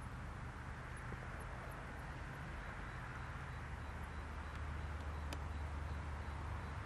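Steady low hum under a continuous hiss, with one faint sharp click about five seconds in.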